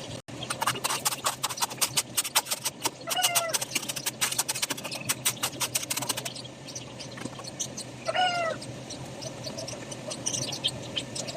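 An animal calling twice, each a short wavering cry, over a quick run of sharp clicks through the first half.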